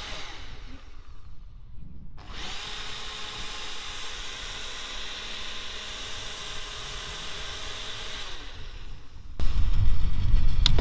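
Ninja Auto-iQ personal blender blending a fruit-juice cocktail with ice. The motor runs, cuts out about a second and a half in, starts again a moment later and runs for about six seconds before spinning down. A loud low rumble sets in near the end.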